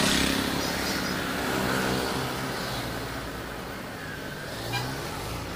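Two-wheelers and auto-rickshaws driving past on a town road, their small engines running, loudest at the start as a motorcycle passes close and then easing off.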